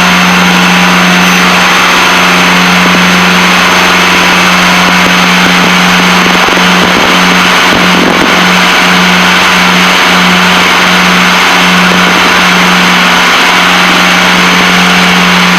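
Piper Seneca's twin piston engines and propellers droning steadily in cruise, heard loudly inside the cabin. For several seconds in the middle the drone pulses in a regular wah-wah beat, the sign of the two propellers turning slightly out of sync, before it settles back to a steady tone.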